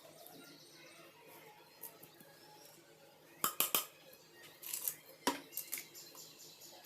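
Kitchenware being handled: a cluster of sharp clinks and knocks about halfway through, then a second scatter of knocks a second later, over a faint background.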